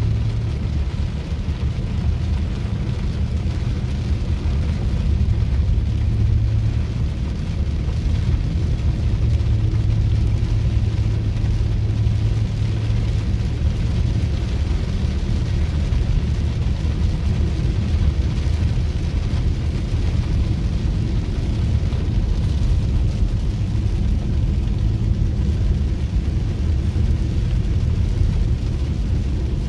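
A vehicle driving in rain: a steady low road and engine rumble with an even hiss above it.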